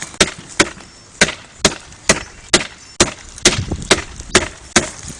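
Hard, evenly spaced knocks on the thick ice crust coating a car, about two a second, as someone tries to break the ice loose without it giving way.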